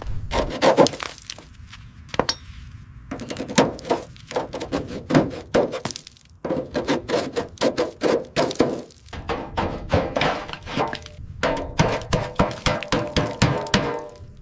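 A rapid run of knocks and clanks of tools striking metal, several a second, many with a short ringing tone, with a brief pause about six seconds in.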